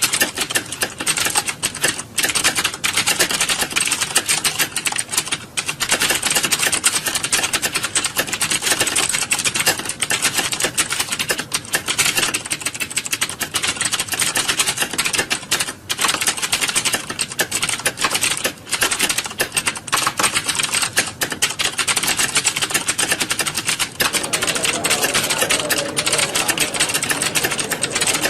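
Many computer keyboards being typed on at once: a dense, continuous clatter of key clicks, like a hall full of candidates sitting a typing test.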